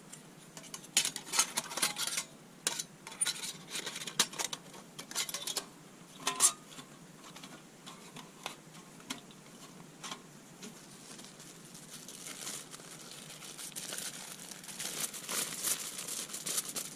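Thin titanium panels of a folding twig stove clicking and clinking as they are handled and slotted together, with the sharpest clink about six seconds in. Near the end, aluminium foil crinkling as it is unfolded and handled.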